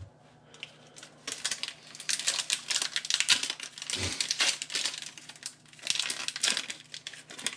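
Foil wrapper of a Pokémon TCG booster pack crinkling as it is pulled open by hand. The crackling starts about a second in and goes on almost to the end.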